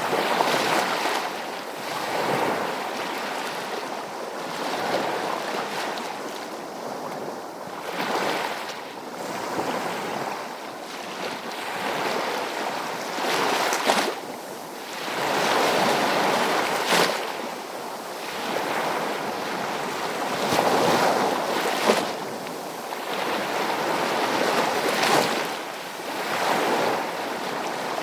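Sea waves breaking and washing in, a continuous rush of surf that swells and ebbs every few seconds, with sharper splashes at a few of the crests.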